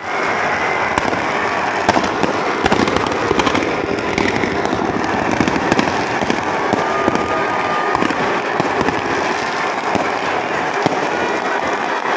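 Firecrackers and fireworks going off from a burning Ravana effigy: a dense, unbroken crackle with frequent louder bangs.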